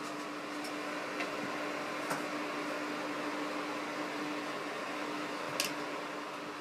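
Small desk circulator fan running with a steady hum and whir, with a couple of light ticks about two and five and a half seconds in.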